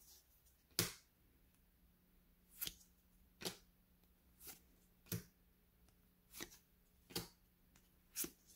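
Paper trading cards being flipped through in the hand, one after another: a short, sharp snap each time a card is slid off the stack, about eight times, roughly a second apart.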